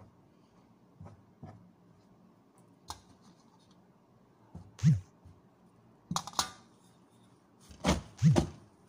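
Saluyot (jute) leaves being handled in a steel bowl and a metal pan: soft rustling with a few light taps, then several louder sharp knocks of metal in the second half.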